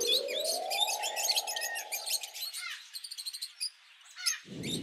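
Lovebirds chirping and twittering in quick short calls throughout. Under them a rising whoosh climbs over the first second and fades out, and a low boom comes in near the end.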